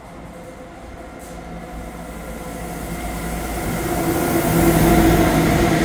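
A train approaching, growing steadily louder with a rumble and a steady mechanical hum, loudest about five seconds in.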